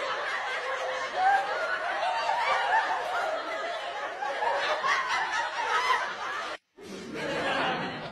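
A group of people laughing together, many voices overlapping, with a sudden brief break about a second before the end.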